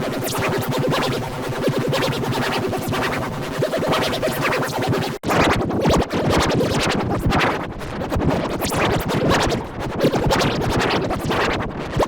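Heavily distorted, remixed music with stuttering, scratch-like chopped edits and a brief sudden cut about five seconds in.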